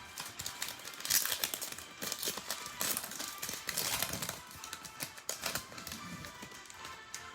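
Trading cards being handled and flipped through: quick irregular clicks, slides and rustles of card stock, with quiet background music underneath.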